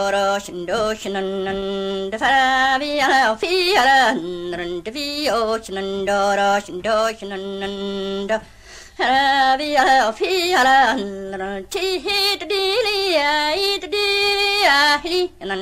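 A woman singing unaccompanied in imitation of the Highland bagpipe, using canntaireachd, the piper's mnemonic syllables. Her held notes are broken by quick ornamental turns like pipe grace notes, with a short breath pause a little past eight seconds.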